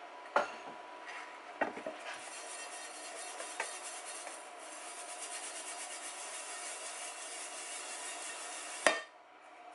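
Dry mustard seeds and husks rattling and hissing in a stainless steel colander nested in a pot as it is shaken to sift the seeds through the holes, with a few metal clanks of colander against pot and a loud clank near the end as the shaking stops.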